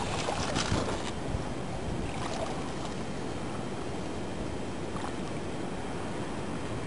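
Steady outdoor wind and water noise with a low rumble, with a few light clicks or rustles in the first second and a couple more later.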